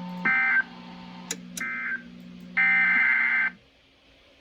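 Emergency Alert System SAME digital data bursts: short, harsh buzzing tones repeating about a second apart, the last one longer. A low steady hum runs under them and stops near the end.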